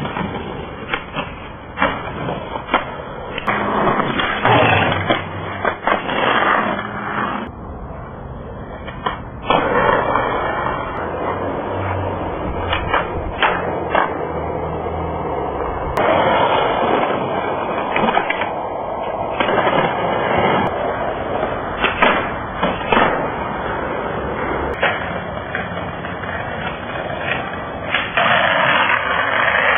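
Skateboards rolling on pavement, with many sharp clacks of boards popping and landing, and boards sliding and grinding on ledges and a picnic table.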